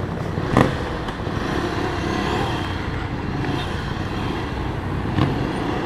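Ducati Scrambler 400's air-cooled V-twin pulling away from a standstill and accelerating along the road. The engine and riding noise build over the first couple of seconds, then hold steady.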